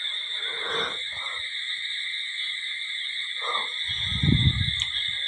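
Low rumble of handling noise on the phone's microphone as the camera is moved about, loudest about four seconds in, over a steady high-pitched hiss.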